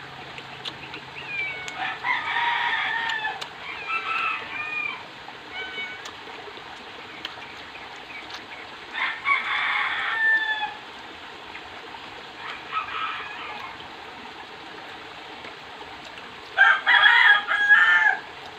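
Roosters crowing several times in the background, each crow about one to two seconds long, the loudest near the end.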